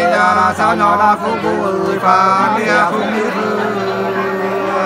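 Sli, the Nùng folk song, sung in long held notes that bend and waver in pitch.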